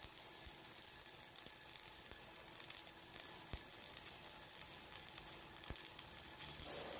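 Flux-cored arc welding on carbon steel: the arc sizzling steadily, with a few sharp pops of spatter. A louder steady hum comes in near the end.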